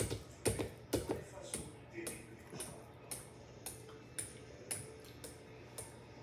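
Spatula knocking and scraping against a stainless steel mixing bowl as thick, heavy cookie dough is stirred, about two knocks a second.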